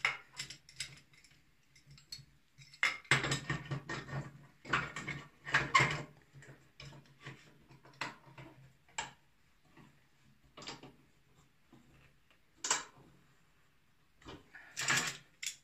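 Steel C-clamp and axe head handled on a steel workbench: irregular metallic clinks, knocks and scrapes as they are positioned and clamped down, busiest a few seconds in and again near the end.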